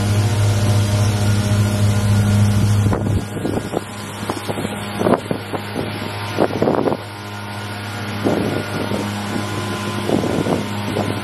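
A steady low motor hum for about the first three seconds, then it drops away. After that comes a run of uneven crunching steps on the gravel ballast beside the railroad track, a couple per second.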